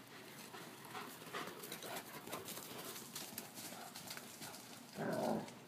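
Two dogs running about on grass and dirt: faint, irregular patter and rustle of paws. About five seconds in comes a brief, louder voiced sound.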